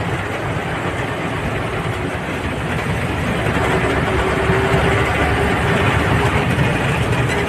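A vehicle driving, heard from on board: a steady low rumble of engine and road noise that grows slightly louder, with a faint steady whine coming in about halfway.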